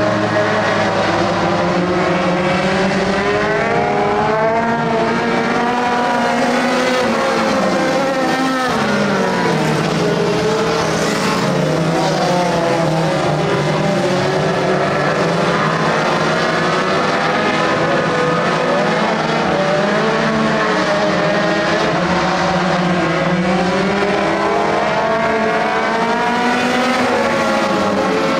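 Engines of several compact dirt-track race cars running hard on the oval, overlapping and rising and falling in pitch as the cars rev, lift and pass.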